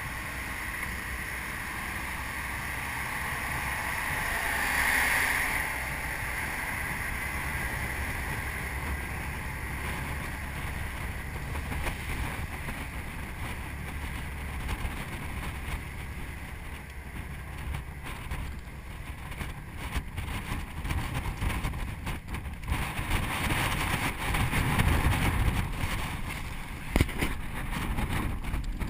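Wind rushing across a moving motor yacht's deck and buffeting the microphone, over the steady low drone of the boat's engine and the wash of a rough sea. There is a brief louder hiss about five seconds in, and the gusts grow stronger and more uneven over the last few seconds.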